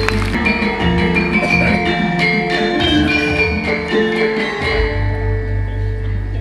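Javanese gamelan orchestra playing: bronze metallophones and gong-chimes struck with mallets in interlocking ringing notes, with a deep low note swelling in about three quarters of the way through.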